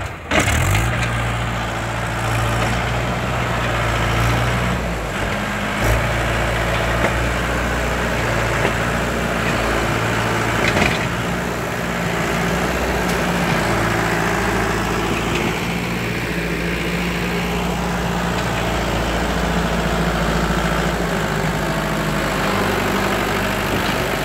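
Swaraj tractor's diesel engine running steadily while hauling a trailer loaded with bricks.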